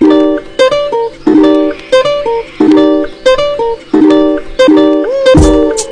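Background music: a bright plucked-string riff, like a ukulele, repeating about every two-thirds of a second, with a low beat coming in near the end.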